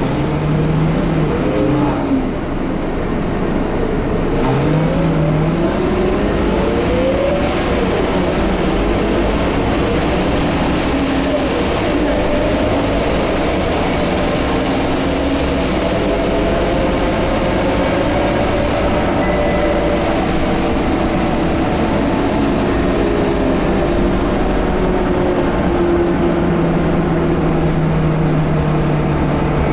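Scania K230UB bus's five-cylinder diesel accelerating, its engine note climbing, with a loud high-pitched whine that rises about four seconds in, holds, then slowly falls away near the end. The uploader suspects the turbocharger or the hub reduction axle.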